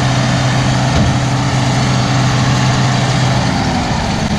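Tractor engine running steadily with a John Deere net-wrap round baler working behind it, a dense mechanical clatter over the engine hum. A single knock about a second in, and the engine pitch drops slightly near the end.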